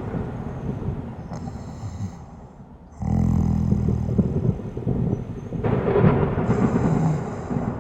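A sleeping person snoring in long breath cycles. The snore tails off over the first couple of seconds into a short lull, then a new one starts suddenly about three seconds in and runs until near the end.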